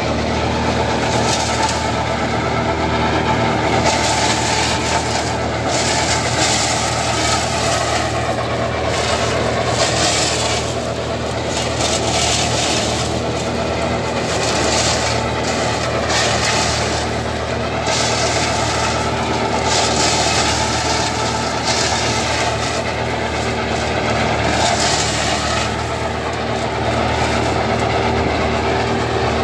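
Tractor diesel engine running steadily while powering a tractor-operated mobile shredder. The shredder's chopping noise swells every second or two as standing plant stalks are fed in and cut.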